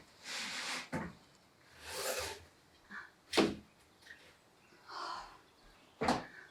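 Irregular work sounds: several sharp knocks or clacks, the loudest about halfway through, with three short swishing noises of about half a second each in between.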